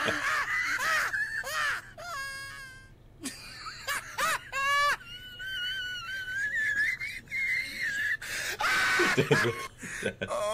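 High, wailing voice sounds mixed with laughter, with one long wavering wail held for a couple of seconds in the middle.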